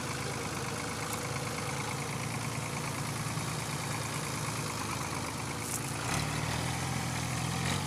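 Fiat 480 Special tractor's three-cylinder diesel engine running steadily while the tractor pulls under load on a chain. About six seconds in, the low engine note gets louder and clearer.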